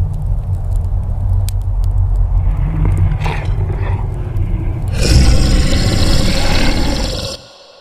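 Motorcycle riding slowly on a dirt and gravel track: a steady low engine-and-wind rumble on the camera microphone, swelling into a louder rush of noise about five seconds in. It cuts off abruptly near the end.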